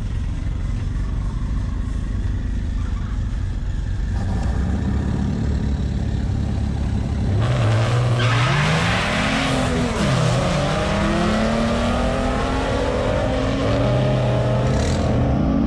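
Drag-racing car engines running loudly. About seven seconds in, an engine revs hard with a burst of tire-spin noise, then its pitch climbs steadily as it accelerates.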